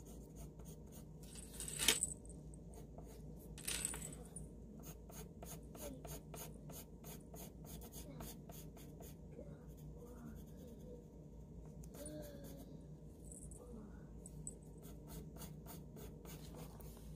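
Pencil scratching on paper in quick, short hatching strokes, a few a second, with two louder strokes about two and four seconds in.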